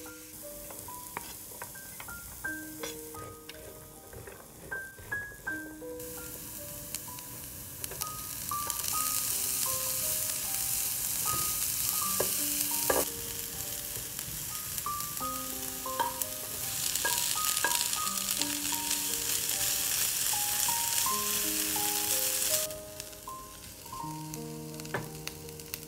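Diced onion, bell pepper, carrot and corn sizzling in a nonstick frying pan as a wooden spatula stirs them. The sizzle turns loud a few seconds in and drops away suddenly near the end, over light background music of plinking notes.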